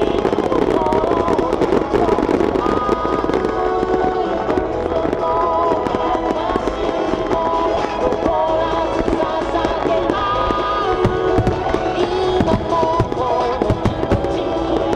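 Star mine fireworks barrage: a rapid string of shell bursts and crackling, the bangs coming thicker in the second half. Music with a held melody plays throughout, mixed with the bursts.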